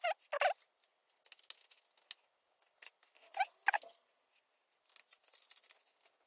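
Light clicks, taps and scrapes of a precision screwdriver and small screws and parts while the Mac mini's fan cover is being unscrewed. Two louder clusters of clicks and scrapes come at the start and about three and a half seconds in, with scattered small ticks between them.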